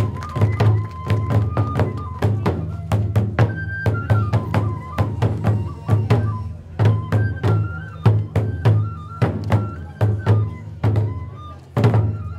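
Two large barrel-bodied taiko drums beaten with sticks in a steady rhythm of about two to three strokes a second, each stroke a deep thump. A bamboo flute (fue) plays a held, stepping melody above them: Hōin kagura accompaniment.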